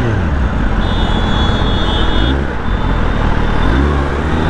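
Kawasaki ZX-10R's inline-four engine at low revs in slow traffic: the revs fall right at the start, then rise again briefly twice, over steady wind and road noise.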